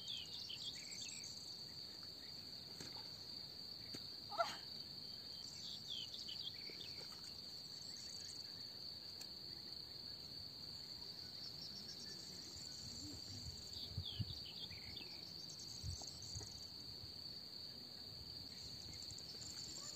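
Steady high-pitched trill of crickets in the grass, with a few short faint chirps scattered through it and one brief louder chirp about four seconds in.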